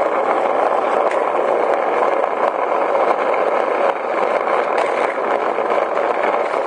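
Skateboard wheels rolling over asphalt: a steady, loud rolling rumble with a few faint clicks from small bumps in the surface.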